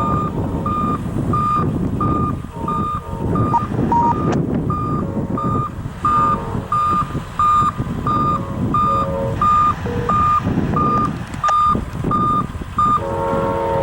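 An electronic warning beeper repeats a single high beep about one and a half times a second over the rumble of a running engine. Near the end, the horn of the approaching GE P42DC locomotive begins to sound.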